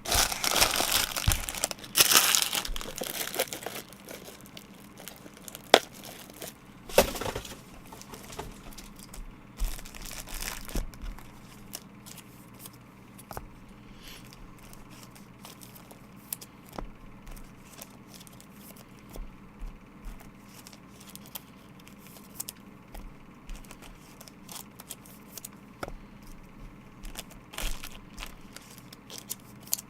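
Plastic trading-card packaging being torn and crinkled, loudest in the first three seconds and again briefly about seven seconds in, then quieter rustling with scattered light clicks of handling.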